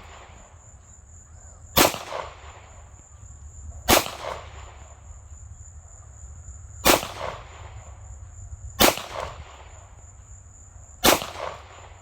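Five single gunshots from a firearm, fired one at a time about two to three seconds apart, each with a short ringing echo.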